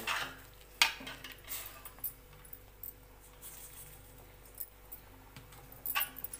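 Metal spoon clinking and scraping against a metal kadai while semolina is stirred into boiling sugar water: a few sharp clinks, the loudest about a second in, with quieter stirring between.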